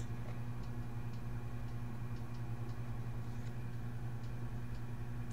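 Steady low electrical hum on the recording, with faint, irregularly spaced clicks of a computer mouse.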